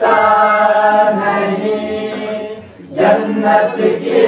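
Naat sung by voice alone, drawing out a long melismatic note, with a short break about two and a half seconds in before the singing picks up again.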